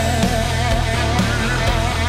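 Background rock music: a lead melody with bending, wavering notes over a steady beat.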